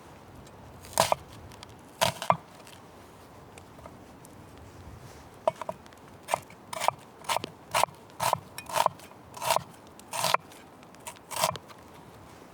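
A series of short scraping, crunching strokes: two near the start, then a quicker run of about one every half second through the second half.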